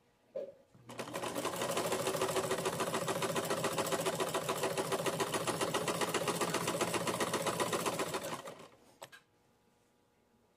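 Sewing machine stitching at a steady fast rate. It starts about a second in, runs for some seven seconds, then slows to a stop, with a single click just after.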